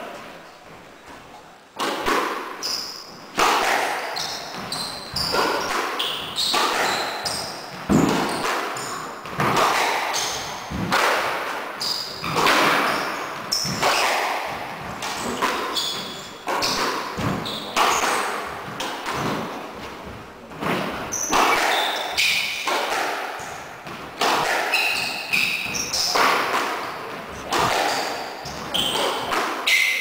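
A squash rally: the rubber ball is struck by rackets and smacks off the court walls, one or two sharp hits a second that ring in the enclosed court, starting about two seconds in. Short high squeaks come from shoes on the wooden floor between the hits.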